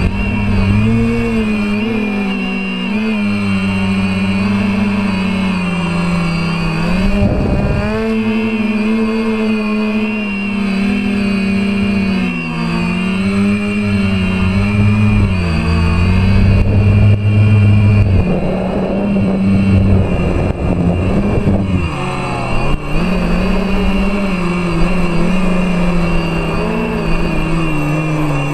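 DJI F450 quadcopter's four brushless motors and propellers whining in flight, the pitch rising and falling continuously with the throttle and dropping sharply twice, about a quarter of the way in and again about three-quarters of the way in. Rushing wind on the onboard camera mixes in at times.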